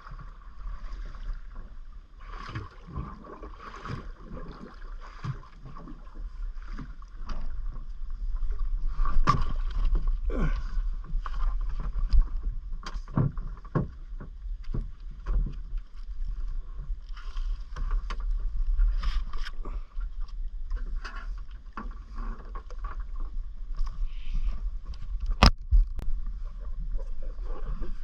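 Underwater ambience: a steady low hum under many irregular sharp clicks and crackles.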